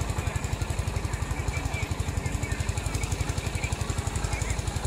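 An engine running steadily, with a low, rapid throb of about ten pulses a second.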